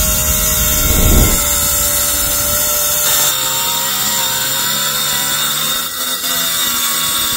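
Cordless circular saw cutting through a rusty steel sheet: a loud, steady, high-pitched whine of the blade in the metal.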